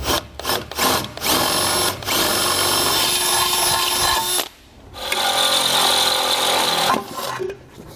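Cordless drill with a half-inch bit boring through the steel frame rail to enlarge factory holes: a few short trigger pulses, then two steady runs of a couple of seconds each with a brief pause between.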